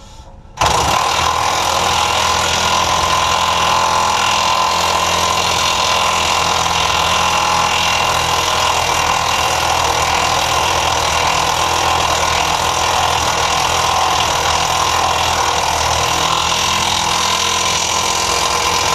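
Heavy impact wrench hammering steadily on a seized fuel-tank cage bolt, starting abruptly about half a second in and holding at an even level.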